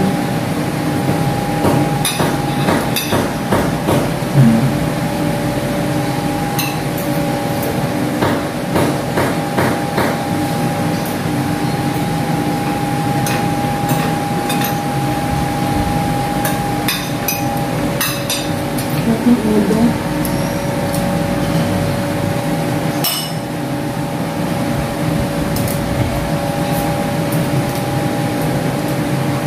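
Spoons and forks clinking and scraping against plates and bowls during a meal, a scattering of sharp clicks over a steady hum with a few held tones.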